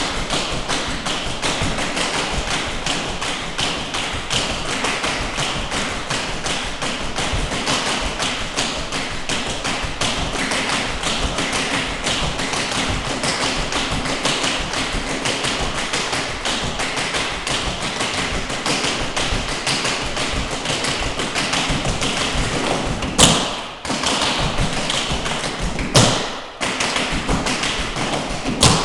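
Metal taps on several dancers' tap shoes striking a hard floor, beating out a fast, dense run of tap rudiments together. Three louder, sharper strikes stand out near the end.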